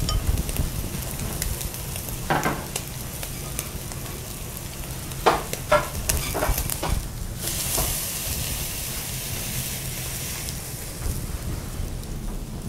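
Matsusaka wagyu steak sizzling on a wire grill over charcoal, with a few sharp clicks of chopsticks on the meat and grill. About halfway through, a stretch of louder, higher hissing.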